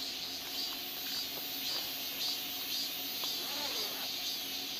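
Night insects chirping in repeated short pulses, about two a second, over a steady hiss.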